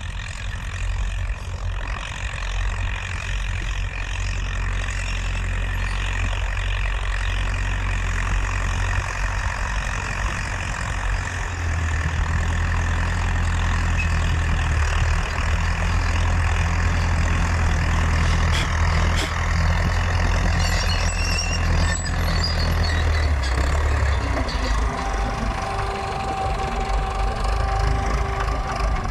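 Massey Ferguson 285 S tractor's four-cylinder diesel engine running steadily under load while pulling a three-bottom mouldboard plough. It is a loud, continuous low drone, with a few extra steady tones joining in near the end as the tractor comes close.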